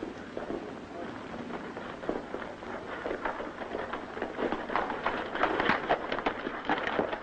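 Horses' hoofbeats clattering, growing louder and denser over the last few seconds as the riders approach.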